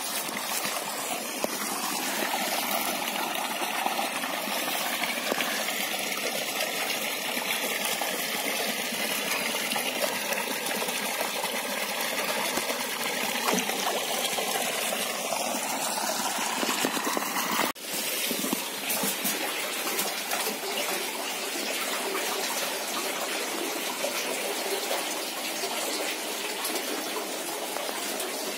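Steady rush of running water. It breaks off abruptly about two-thirds of the way through and resumes with a slightly different sound.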